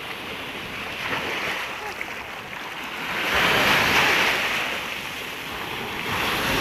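Sea waves washing onto the beach, one surge building about three seconds in and ebbing away, with another starting near the end.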